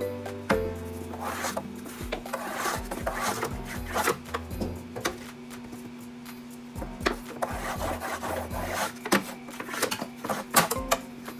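Scrubbing and rubbing on the floor of a washing-machine drain pan, in two main bouts with knocks and clicks between, over background music.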